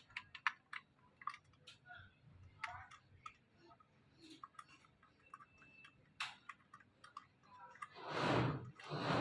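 Scattered light clicks and taps of small metal parts being handled, consistent with fitting a blade to a cordless circular saw. Near the end come rhythmic rustling strokes, about one a second.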